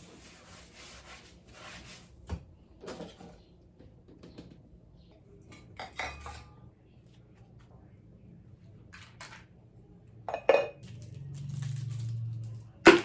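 Dishes and cutlery being handled, with scattered clinks and knocks, the loudest right at the end. A low hum runs for about two seconds near the end.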